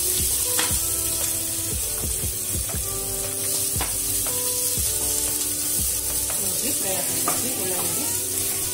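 Chopped onions and curry leaves sizzling in hot oil in a pot while they are stirred and scraped with a wooden spatula, with short scrapes and knocks of the spatula against the pot. The onions are being fried until they turn reddish.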